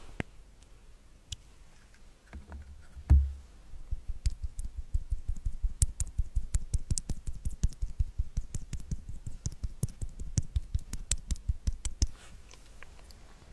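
Fingernails tapping rapidly on or right at the microphone, several sharp clicks a second, each with a low thud. There is one heavier knock about three seconds in, and the tapping stops about a second before the end.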